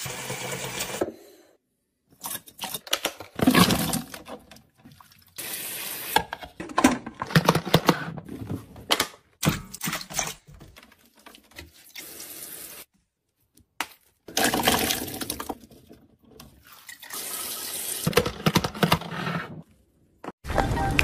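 A string of short clips of kitchen sounds, each broken off by a brief silence: water running from a kitchen tap and splashing in the sink, and fruit being swished in a bowl of water, among other items being handled.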